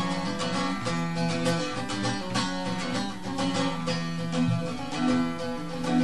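Instrumental break of a folk song: a plucked string instrument plays quick runs of notes over steady low sustained tones.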